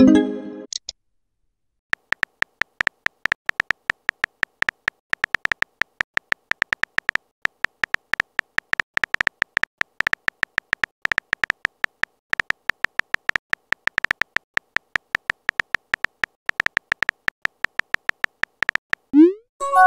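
Typing sound effect: a rapid, irregular string of short, high electronic beeps, several a second, as chat text is typed out. A short rising swoop follows near the end.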